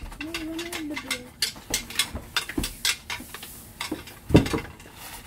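Antlers rattled and knocked together: a run of clacks and clicks, with one louder knock about four seconds in.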